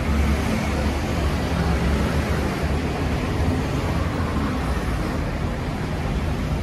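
Steady street traffic noise under an elevated metro station: an even low rumble with a haze of passing-vehicle noise, without the rising whine of a train pulling away.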